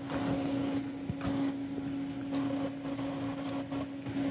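TIG welding arc laying a tack weld on a stainless steel 2-inch SCH10 pipe joint: a steady buzz that comes up as the arc is struck at the start, with a few faint ticks over it.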